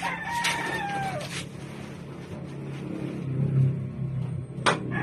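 A drawn-out animal call lasting about a second at the start, level and then falling in pitch. A sharp knock comes near the end, over a steady low hum.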